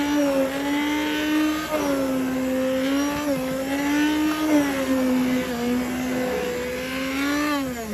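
Electric immersion blender running in a bowl of thick, stiffened homemade dish soap paste, its motor whine wavering up and down in pitch as the blade meets more or less resistance while she whips the soap.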